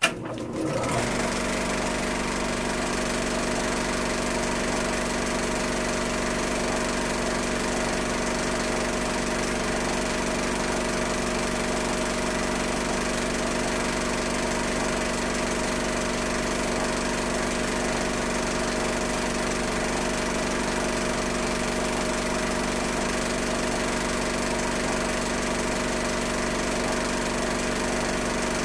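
Film projector running steadily: a continuous mechanical whirr with a steady hum, after a brief click at the very start.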